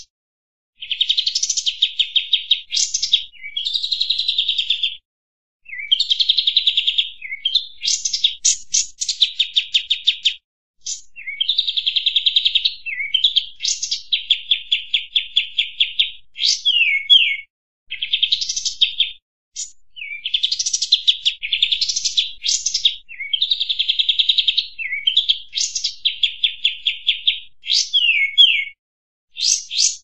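Kapas tembak bulbul singing: bursts of fast, rattling trills of repeated high notes mixed with short gliding whistles, each burst lasting one to three seconds with brief pauses between.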